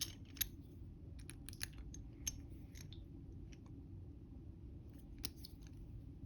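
Scattered faint metallic clicks from handling a freshly picked-open padlock and its picking tools, over a low steady background hum.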